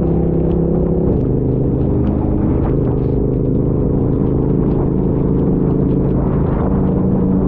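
Motorcycle engine running under a steady low rumble. Its pitch steps down about a second in.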